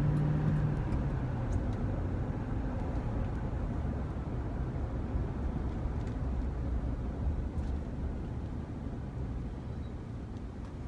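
Road traffic noise: a steady low rumble of vehicles, with one vehicle's engine tone fading away in the first second.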